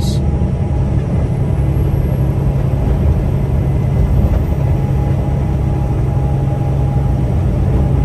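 Steady low drone of a Peterbilt 579 semi truck's diesel engine and road noise heard inside the cab while cruising, with a faint steady higher tone over it.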